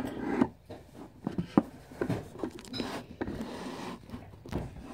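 Handling noise close to the microphone: scattered light knocks and rubs, with a sharper knock near the end.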